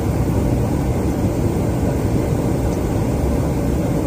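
Steady low rumble of jet engine and airflow noise inside an aerial refueling tanker's boom pod in flight, with a faint steady hum running through it.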